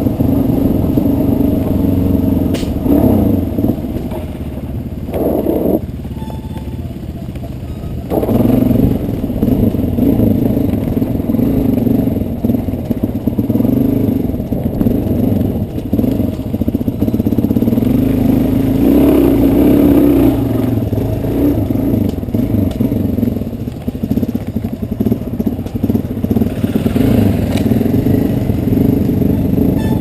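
Adventure motorcycle engine running while the bike is ridden over a gravel trail, recorded on the bike itself. The engine note rises and falls with the throttle and drops back for a few seconds about a quarter of the way in.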